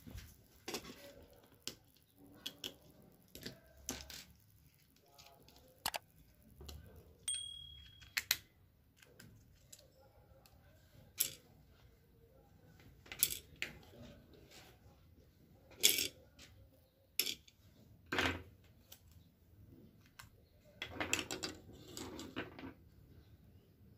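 Irregular plastic clicks, taps and knocks from handling an opened electric blanket controller, its plastic case halves and circuit board being moved and set down on a workbench, with a short stretch of rustling near the end.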